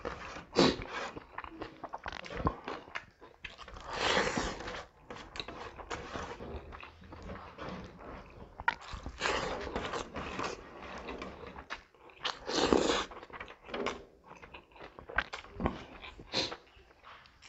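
Close-up eating sounds of a person chewing pork and rice taken by hand: wet chewing and lip-smacking with many small clicks, and three longer, louder rushes of sound about four, nine and thirteen seconds in.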